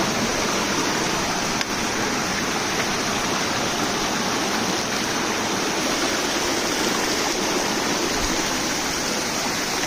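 Small rocky stream cascading over boulders: a steady rush of falling and running water.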